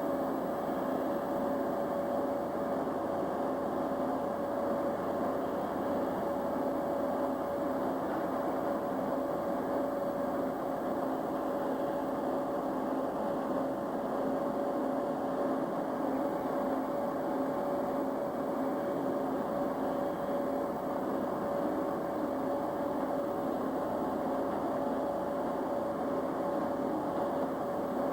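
Machinery running steadily: a constant hum with a held tone over an even rushing noise, unchanging throughout.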